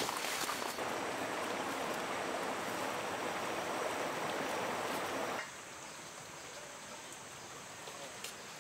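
Steady rushing of flowing water, which cuts off abruptly about five seconds in. Quieter ambience with a faint steady high tone follows.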